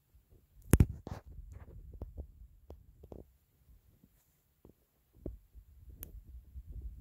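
Handling noise from the camera being moved by hand: a sharp click about a second in, then scattered soft clicks and low thumps, with another sharp click near the end.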